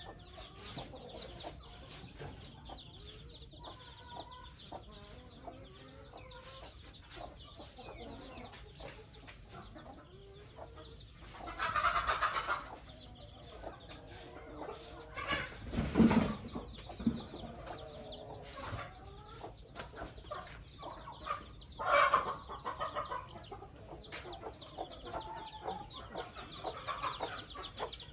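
Chickens clucking and calling steadily in a poultry house, broken by a louder rustle about halfway through, a heavy thump a few seconds later and another short noisy burst near the end.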